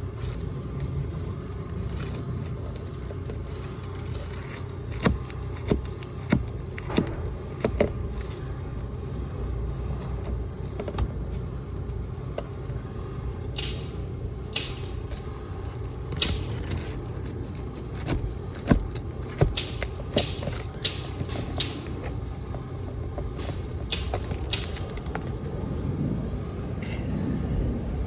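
Hand tools knocking and scraping against asphalt roof shingles as a damaged shingle is worked loose for removal: a quick run of sharp knocks, then more scattered knocks and scrapes. A steady low rumble runs underneath.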